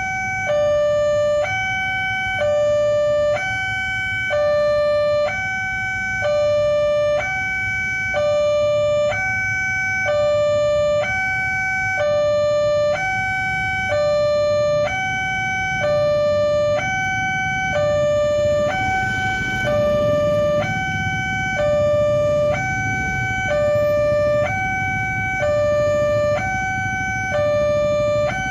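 Railway level-crossing warning siren, an uncommon type, sounding a steady two-tone hi-lo wail that switches between a higher and a lower tone about once a second, over a low rumble.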